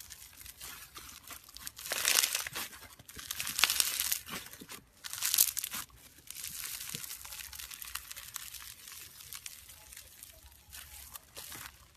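Foam-bead slime (floam) crackling and crunching as hands squeeze, stretch and pull it apart. There are louder crunchy bursts about two, four and five seconds in, then softer crackling.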